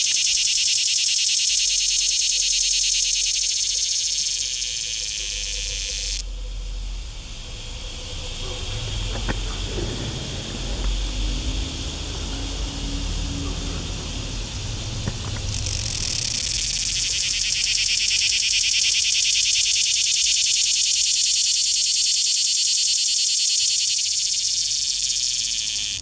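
Cicada singing: a loud, steady, high-pitched buzz that cuts off suddenly about six seconds in and starts up again after roughly nine seconds, running until just before the end.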